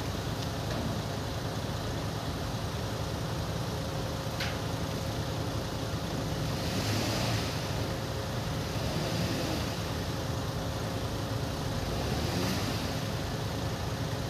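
Steady low rumble of a vehicle engine running, with a hiss that swells twice, about seven and twelve seconds in.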